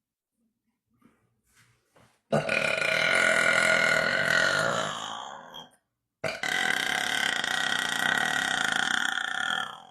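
A woman belching: two long burps, each lasting about three and a half seconds with a short pause between, the first trailing off at its end. A few faint short sounds come before the first burp.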